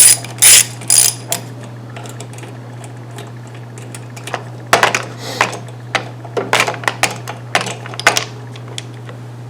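Ratchet wrench clicking briefly as the 10 mm bolts on the mower's air cleaner are undone, then scattered metal clicks and clinks as the loosened parts are handled. A steady low hum runs underneath.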